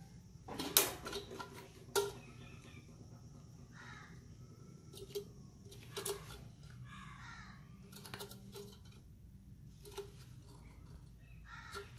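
Sheet-metal parts of an old Feuerhand hurricane lantern clinking and knocking as they are handled, the two loudest knocks about one and two seconds in. A few short squeaky metal scrapes come between the clinks.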